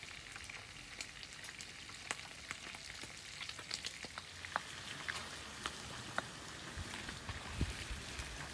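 Stone pestle pounding and grinding chillies and vegetables in a stone mortar: irregular sharp clicks and crackling, with a few dull thumps near the end.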